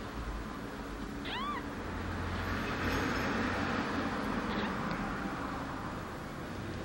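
A three-day-old kitten gives one short, high mew about a second in, over a steady background hiss.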